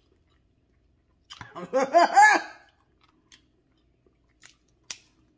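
A voice hums a wordless, savouring 'mmm' of a few rising-and-falling notes about a second in. Faint eating sounds follow: a few small clicks and one sharp click near the end.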